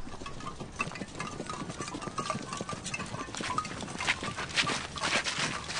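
A horse's hooves clopping and shuffling irregularly on a dirt path.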